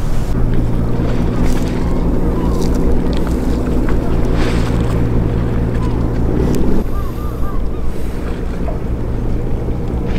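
Steady low engine hum with wind buffeting the microphone. The hum cuts out about seven seconds in, leaving the wind and a few faint short high chirps.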